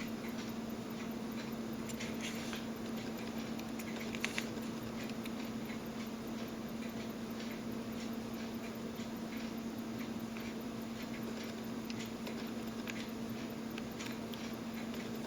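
Faint, scattered small ticks and clicks of a tool and metal parts being handled on a tiny quartz watch movement as its upper plate is fitted, over a steady low electrical hum.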